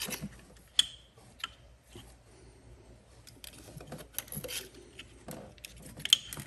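New ignition coil packs being handled and pushed down into the spark plug wells of an Audi 3.0T engine: scattered plastic clicks and light rattles, with two sharper clicks about a second in and near the end.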